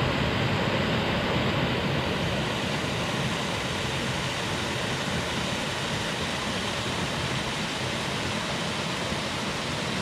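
Small creek cascade: water tumbling over a low rock ledge into a shallow pool, a steady rushing splash.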